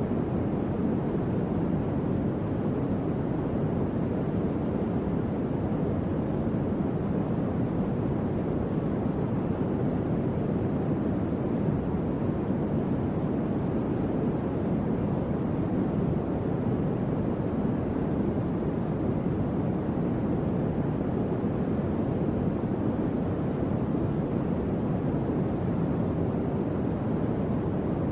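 Electric fan running steadily: an even, low whooshing rush of moving air with no change in speed.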